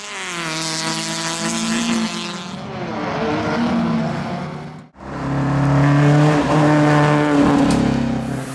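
Rally car engine running at high revs, its pitch dropping and rising as the car is driven hard, with a hiss of tyres in the first couple of seconds. The sound cuts off abruptly about five seconds in and resumes with the engine held at high revs.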